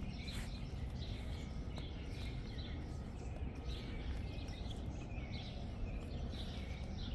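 Outdoor ambience: a steady low rumble, with faint bird chirps scattered throughout.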